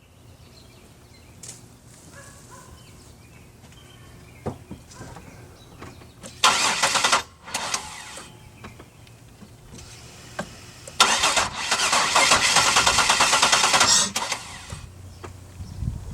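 Starter cranking a 2002 Buick LeSabre's 3.8-litre V6 in two tries, a short one under a second long and then a longer one of about three seconds, without the engine catching: a no-start.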